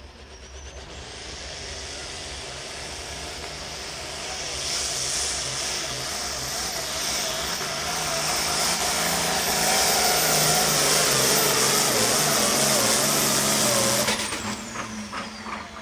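Turbocharged diesel engine of a Pro Field pulling tractor under full load down the track, with a high turbo whistle. It grows louder for about fourteen seconds, then drops off suddenly as the run ends.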